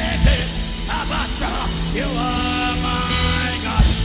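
Live worship band music with a drum kit played hard: loud hits a fraction of a second in and again near the end, over sustained held chords.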